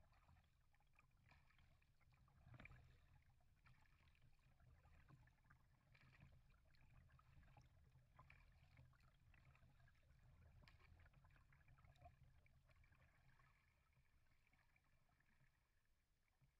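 Near silence: faint water lapping and trickling against a kayak hull gliding on calm water, with small scattered ticks and splashes and a faint low rumble.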